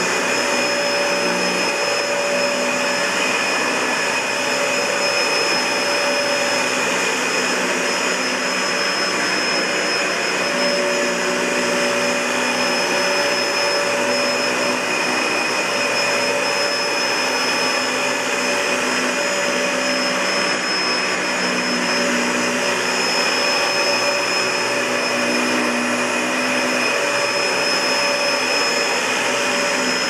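Dyson DC65 Ball Animal bagless upright vacuum cleaner, fitted with a Panasonic blower motor, running continuously while it is pushed back and forth over carpet: a steady rush of air with a high whine on top.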